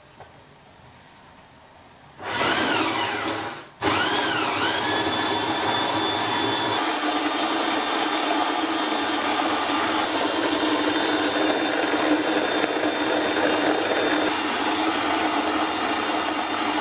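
Motor-driven grain mill crushing malt for the mash: the motor starts with a whine rising in pitch, stops briefly after a second or so, then starts again and runs steadily.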